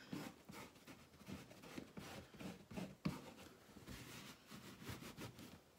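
Hands rubbing and pressing a piece of denim jeans fabric over a wet-painted wooden box: faint, irregular scuffing strokes, with a sharper knock about three seconds in.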